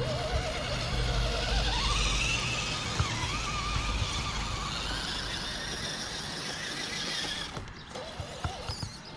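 Electric motor and drivetrain of an RC rock crawler whining as it drives. The pitch climbs over the first two seconds, holds with a slight waver, and cuts off about seven and a half seconds in, leaving a few faint clicks.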